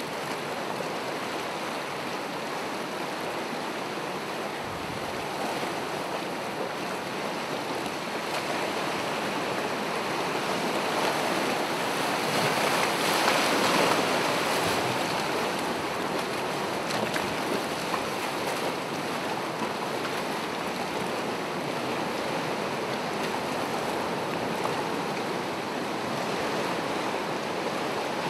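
Gentle ocean waves washing onto the shore, a steady hiss of surf with one wave breaking louder about halfway through.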